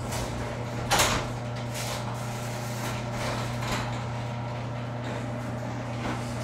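Ceiling-mounted garage door opener running as the sectional garage door rolls down and closes, a steady hum with a sharp click about a second in.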